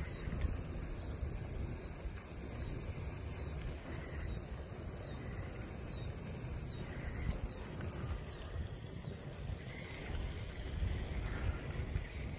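An animal repeating a short high chirp about twice a second, stopping about eight seconds in, over low outdoor rumble and a steady thin high whine.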